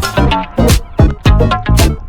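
Upbeat background music with a steady drum beat and bass line.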